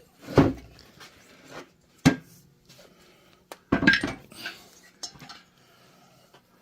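Metal tools and parts clinking and knocking in a workshop: a few sharp separate knocks, the loudest about half a second in, another at two seconds and a quick run of clinks near four seconds.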